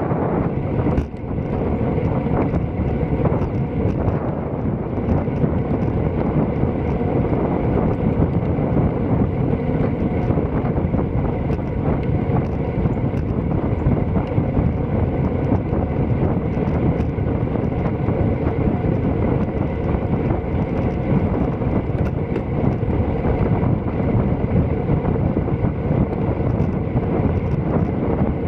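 Steady wind noise rushing over the microphone of a bicycle-mounted camera at riding speed, mixed with tyre rumble on asphalt. It dips briefly about a second in.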